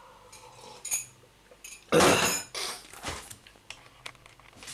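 Objects being handled and knocked about on a kitchen counter: one loud scraping clatter about two seconds in, then a few lighter knocks and clicks.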